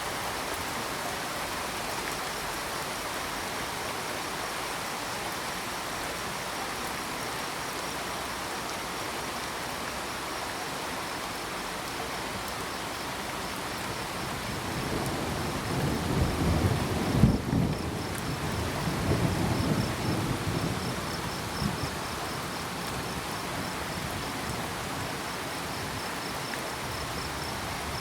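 Steady rain falling, with crickets chirping in a thin high pulse throughout. Past the middle, a low roll of thunder swells, peaks and fades away over about six seconds.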